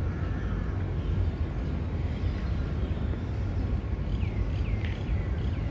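Outdoor park ambience: a steady low rumble, like distant city traffic or wind on the microphone, with a few short bird chirps about four seconds in.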